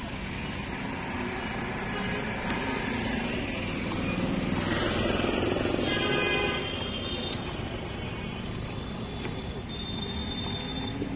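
Steady street traffic noise, swelling from about four seconds in and easing off after six and a half, with a brief high tone of several pitches around six seconds in.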